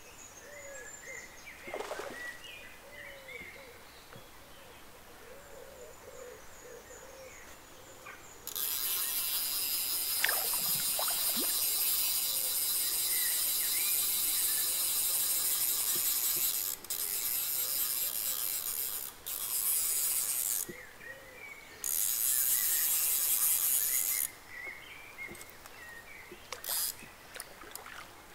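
Hardy fly reel's click-pawl ratchet rattling in long runs as line comes off or is wound onto the spool while a hooked brown trout is played. It starts about a third of the way in, breaks off briefly a few times, and stops near the end.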